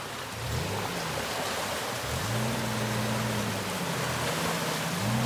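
Suzuki Jimny's engine revving as the 4x4 wades through a shallow river, its pitch climbing about half a second in and again around two seconds, holding, then dipping and rising once more near the end. Water rushes and splashes around the wheels and the bow wave.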